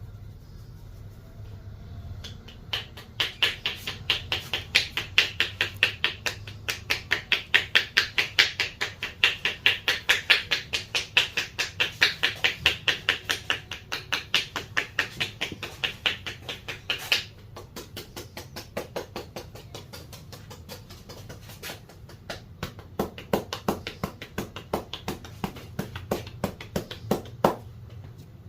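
Rapid rhythmic hand strikes of a percussive massage: the barber's hands slap and chop about four or five times a second in a long sharp run. After a pause of about a second, a slower, duller and more uneven series of slaps follows, ending shortly before the end.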